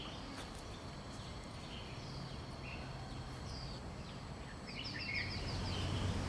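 Outdoor background noise with a songbird singing a few times, including a quick run of repeated high notes about five seconds in.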